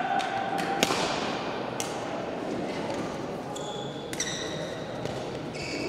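Badminton rackets striking a shuttlecock, a sharp crack about a second in and another a second later, with shoe squeaks on the court floor around four seconds and near the end, over a hall's background murmur.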